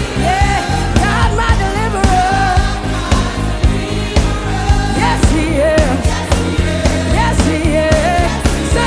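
Live gospel worship music: lead and group vocals singing over a full band with bass, keys and drums keeping a steady beat.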